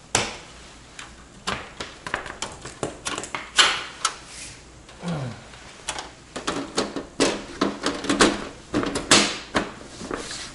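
A desktop computer's case and its windowed side panel being handled and fitted back on: a run of clicks, knocks and scrapes, with a sharp knock right at the start and a dense clatter in the second half.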